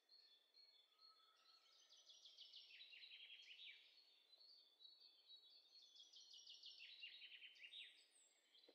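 Faint songbirds singing, with two long trilled phrases of rapid high notes that step down in pitch, one about two seconds in and another about six seconds in, over thin high whistled notes.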